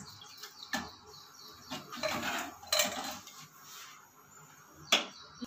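A steel ladle stirring watery curry in a metal pressure cooker, with liquid swishing and a few clinks of the ladle against the pot's side.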